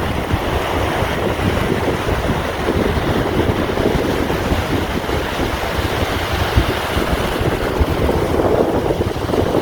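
Sea waves washing in steadily under wind, with low gusts buffeting the microphone; the wash swells about three seconds in and again near the end.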